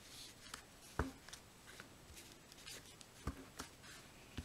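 A clear stamp being inked on an ink pad and pressed onto cardstock: soft knocks about a second in, a little past three seconds and at the very end, with small ticks and paper rustling between.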